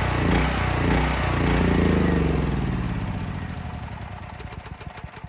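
Champion 11500/9200 W portable generator engine running unevenly, then winding down: its pitch and level fall and the firing slows to separate pulses until it stops near the end. It is being run out of gas before storage.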